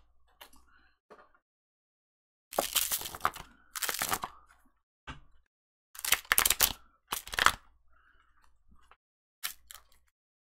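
Cardboard card box and oracle cards being handled: several short scraping, rustling bursts with brief gaps between them.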